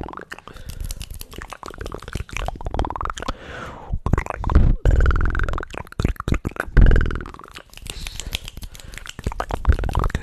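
Close-microphone ASMR mouth sounds: rapid wet clicks and pops, mixed with gurgling, gliding throat and voice noises.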